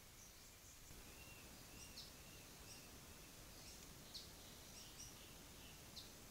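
Faint forest ambience with distant small birds chirping: short high chirps and a few quick downward-sweeping notes, roughly two seconds apart, over a low steady hiss.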